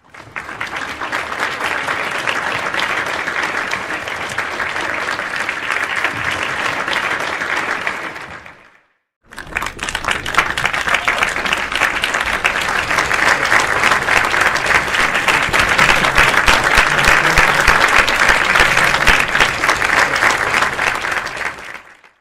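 Crowd applause, dense clapping, in two takes: the first fades out after about eight seconds, then after a second of silence a second, louder round builds up and fades away near the end.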